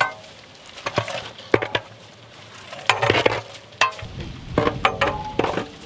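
Food being stirred in a cooking pot with some sizzling, and a few sharp clinks of the spoon against the pot.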